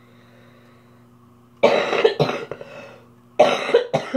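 A young woman coughing in two loud bouts of a few coughs each, about a second apart.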